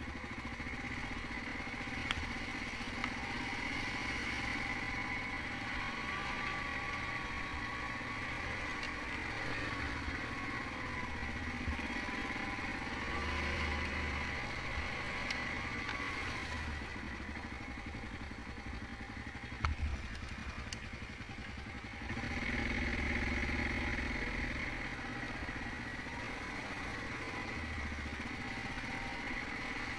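Yamaha Grizzly 700 ATV's single-cylinder engine running steadily at trail-riding speed, louder for several seconds from about twenty-two seconds in. A couple of sharp knocks come just before that.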